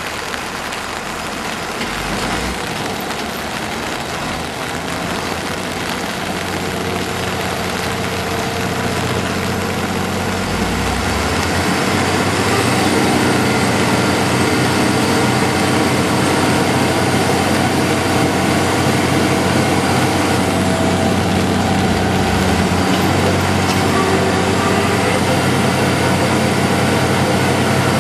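A heavy truck engine running, growing louder over the first half and then holding steady, over a constant hiss.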